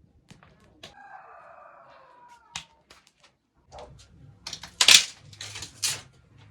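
A rooster crows once about a second in, one long call that dips in pitch at its end. Then comes a run of loud cracks and rustles, loudest about five seconds in.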